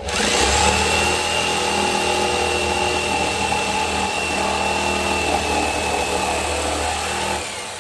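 Jigsaw running steadily as it cuts through the wall of a 55-gallon barrel, a motor whine with a high steady tone. It starts at once, is switched off about seven seconds in and winds down.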